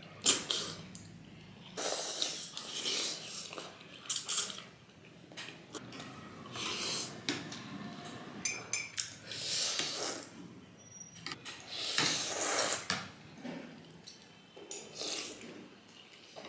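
Two people slurping noodles from thukpa noodle soup in repeated, irregular wet slurps, with forks and spoons now and then clinking against ceramic bowls.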